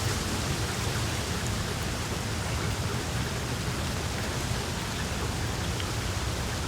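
Steady rainfall hissing, with a low rumble of wind beneath it and a few separate drops ticking.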